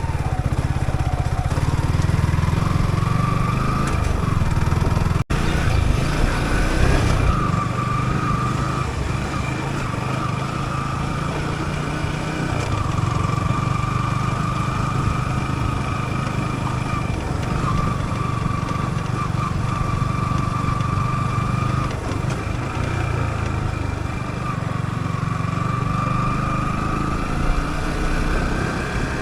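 Yamaha YZF-R15's single-cylinder four-stroke engine running at low, fairly steady revs while riding, its pitch dipping and rising slightly and climbing near the end. A brief break about five seconds in.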